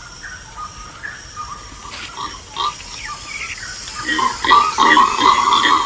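Monkeys calling: a jumble of short, high squeaks and chirps that grows louder and denser about four seconds in.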